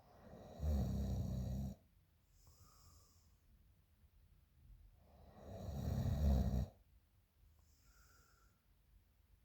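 A woman snoring loudly: two rattling snores about five seconds apart. Each is followed by a softer breath with a faint whistle.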